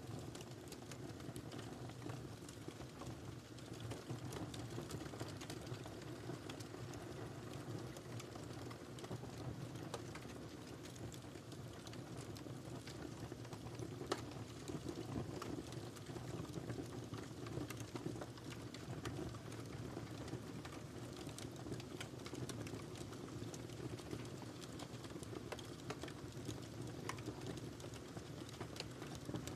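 Wood fire burning in a fireplace: a steady low rumble of flames with frequent small crackles and pops, one sharper pop about halfway through.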